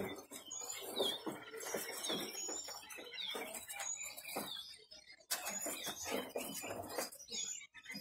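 Many caged small songbirds chirping at once: a dense, overlapping chorus of short, high, downward-slurred chirps, with a single sharp knock about five seconds in.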